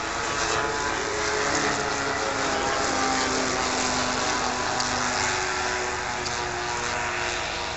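A pair of WWII bombers, a Boeing B-17 among them, flying past low in formation: a steady drone from their piston propeller engines, dropping slightly in pitch partway through as they pass and easing off a little near the end.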